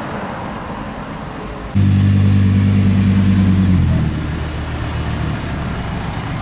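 Audi R8's V10 engine: after a little street noise it comes in suddenly loud just under two seconds in, holding a steady low note, then drops back to a quieter steady running sound about four seconds in.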